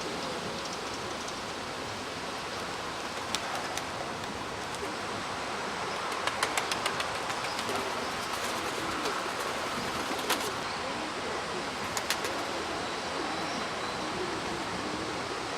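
Gusty wind rushing steadily over the microphone, with domestic pigeons cooing faintly in the second half. Short runs of sharp clicks come about six to seven seconds in and again near twelve seconds.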